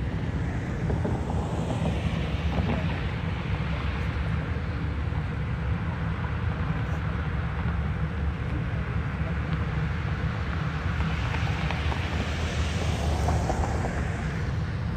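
Steady low rumble of car engines and exhaust heard at a distance, with wind on the microphone. The sound swells about two seconds in and again near the end as a car runs up the road.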